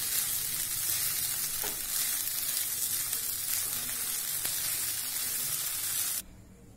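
Puli aval upma (tamarind flattened rice) sizzling in a nonstick pan while a wooden spatula stirs and tosses it, a steady frying hiss. The sizzle cuts off abruptly about six seconds in.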